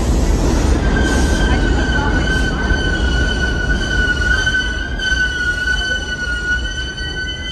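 R46 subway train coming into the station and slowing to a stop, its low rumble easing off. About a second in, a steady high squeal starts and holds.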